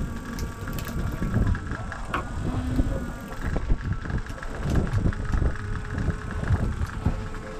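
Boat engine running at a steady idle, with wind buffeting the microphone and occasional knocks on deck.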